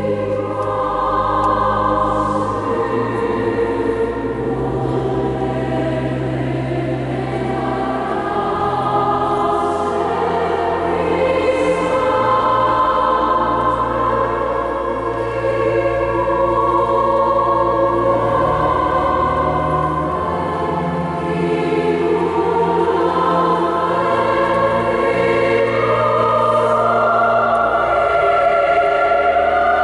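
A choir singing slow, sustained chords, with long-held low notes beneath that change every few seconds, in a large church.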